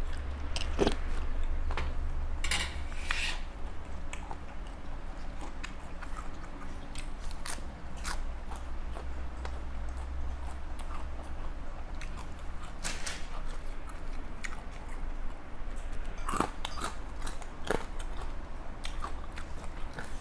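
A person chewing and biting into crunchy food close to the microphone, with scattered crisp crunches over a steady low hum.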